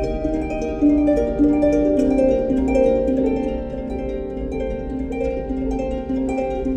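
Background music: a melody of short plucked notes over a steady low hum.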